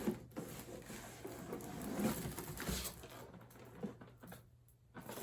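Rustling and handling of packaging and items in a cardboard box, with a sharp knock at the start and a few small clicks after.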